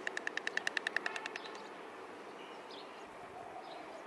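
White stork clattering its bill: a rapid, even run of dry clacks, about nine a second, that fades out about a second and a half in. Faint bird chirps follow.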